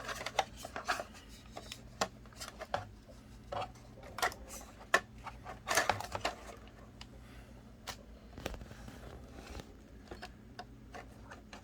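Packaging of a pair of true wireless earbuds being opened by hand: irregular clicks, taps and rustling, with a denser cluster about six seconds in.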